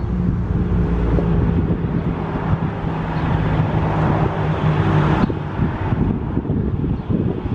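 Wind buffeting the microphone over a nearby vehicle engine running with a steady low hum, which cuts off abruptly about five seconds in.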